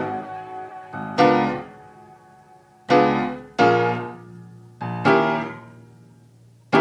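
Background music: piano chords struck one after another, about every second or so, each ringing out and dying away before the next.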